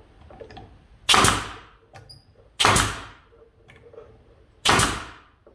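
Nails being driven into cedar boards: three sharp, loud strikes, one about every one and a half to two seconds.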